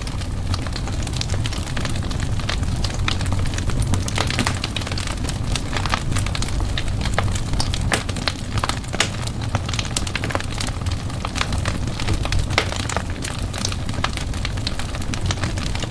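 Wood fire burning in a fireplace: a steady low rumble of the flames with frequent irregular crackles and pops.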